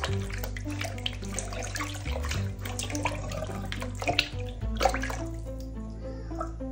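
Water sloshing and splashing in a bowl as hands rub and rinse raw meat pieces in it. The splashing thins out about five seconds in. Background music with a steady bass line plays throughout.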